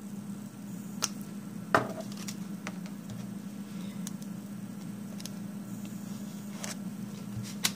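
A few sharp little clicks and taps of nail-stamping tools being handled on a table, polish brush and bottle against a metal stamping plate, the sharpest about two seconds in, over a steady low hum.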